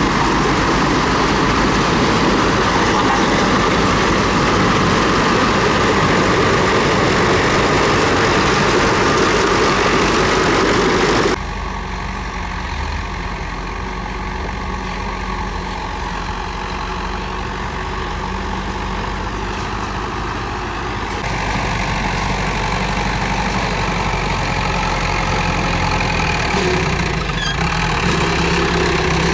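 Komatsu D31P bulldozer's diesel engine working, loud and dense with mechanical noise, then dropping abruptly about eleven seconds in to a quieter, steady run and stepping up again about ten seconds later.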